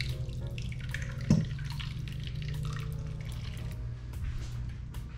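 Thick blended sauce pouring from a blender jar into a saucepan, with one sharp knock about a second in, over a steady low hum.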